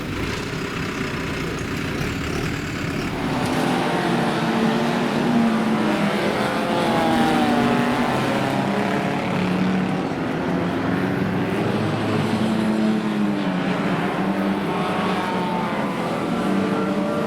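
Several banger racing cars' engines running hard around a track, their notes rising and falling as they accelerate and lift off, growing louder about three seconds in.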